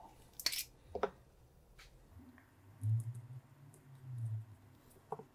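Light handling clicks of EPROM chips and fingers on a work mat, and two soft, low, muffled sounds while glue is squeezed from a small plastic applicator onto the chip.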